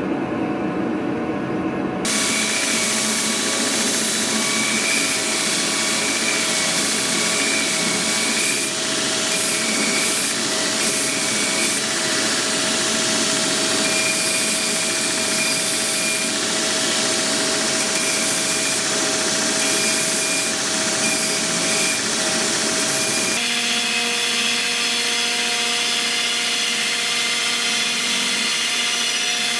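Belt grinder running while a forged steel sword cross-guard is ground against the moving abrasive belt: a steady motor whine under the hiss and rasp of grinding. It starts about two seconds in after a low hum, and the pitch of the whine changes about two-thirds of the way through as the work moves to the grinder's small-wheel attachment.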